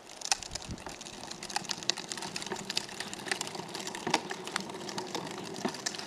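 A Scotts Turf Builder lawn spreader pushed along a concrete sidewalk, its wheels and hopper rattling in a continuous run of irregular clicks and clacks over a faint low hum.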